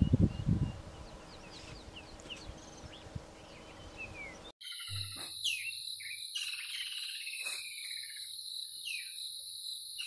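Bush ambience with scattered bird chirps and a few low bursts of noise at the start. About halfway it changes abruptly to a dusk chorus: insects giving a steady high shrill at two pitches, with frog and bird calls over it.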